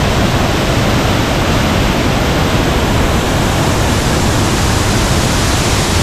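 Waterfall in full, rain-fed flow, water falling hard down a rock face onto rocks and a pool: a loud, steady roar.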